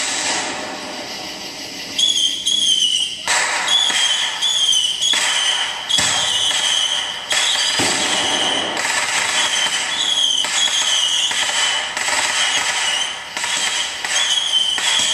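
Aerial fireworks going off: a string of sharp bangs, roughly one every second or two, with a high wavering whistle sounding between them.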